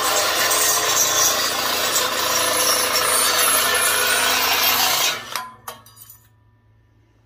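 Drill-driven Dicfeos double-head metal nibbler punching its way through copper sheet, the drill running at speed with a dense, steady cutting noise. It stops abruptly about five seconds in, followed by a couple of light clicks.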